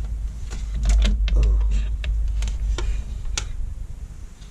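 Irregular clicks and light knocks of an LCD monitor's metal and plastic parts being handled and moved during disassembly, over a low rumble of handling bumps.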